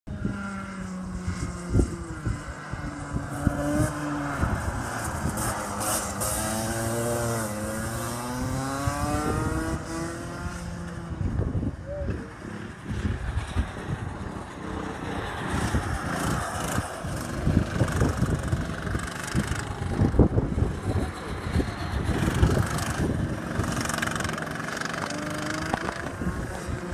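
Rotax Max 125cc two-stroke racing kart engines passing on the circuit, revving up and down so the pitch rises and falls as the karts brake and accelerate through the corners.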